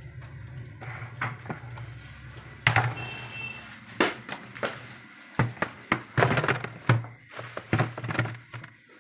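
Irregular clicks, taps and knocks of plastic parts and wiring being handled as a refrigerator's freezer compartment is put back together, over a low steady hum.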